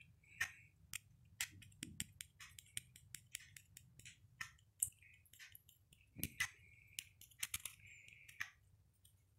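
Small handheld mesh strainer being tapped and shaken to sift powdered sugar: a string of faint, irregular light clicks and taps, a few every second.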